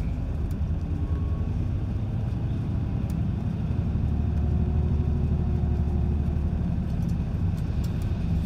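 Steady low rumble of a route bus's engine and tyres heard from inside the cabin as it runs downhill, with a few faint clicks or rattles.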